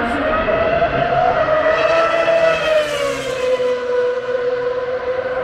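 Racing car engine running hard on the circuit, heard from the grandstand: a loud, steady engine note that climbs slightly about a second in and then slowly sinks.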